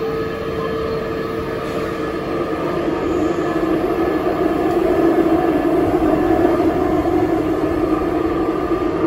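Busan Metro Line 2 subway train running, heard from inside the car: a steady rumble with a held tone in it that gets louder about three seconds in.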